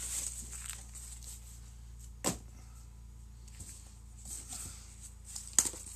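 Cardboard boxes being shifted and rummaged inside a large shipping carton: faint scraping and rustling, with a sharp knock a little over two seconds in and a few more near the end.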